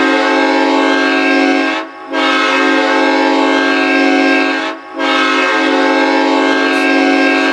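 Hockey goal horn blowing in long blasts, with two short breaks about two and five seconds in; the last blast is still sounding at the end.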